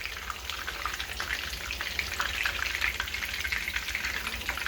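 Chicken croquettes frying in hot oil in a pan: a steady sizzle full of small crackling pops.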